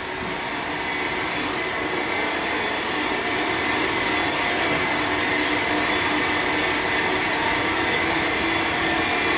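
Sandwich panel production line machinery running: a steady mechanical hum and rumble with a few faint steady tones, growing somewhat louder over the first few seconds.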